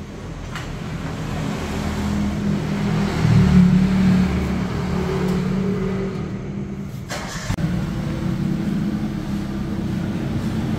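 Toyota Avanza's engine running through a newly fitted aftermarket racing exhaust with a dry-type Spoon Sport-style muffler, giving a deep bass exhaust note. The engine swells to a peak about three and a half seconds in, then settles back to a steady idle.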